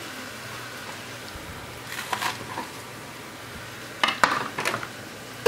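Food sizzling steadily in a stainless steel frying pan as chopped green onion is dropped in, with a few sharp clicks and knocks against the pan about two seconds in and again near the end.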